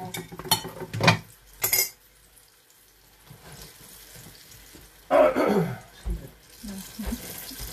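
Kitchen clatter while deep-frying: a few sharp clinks of a utensil against dishes and a pan in the first two seconds, then a faint steady hiss of frying oil, and a short louder clatter about five seconds in.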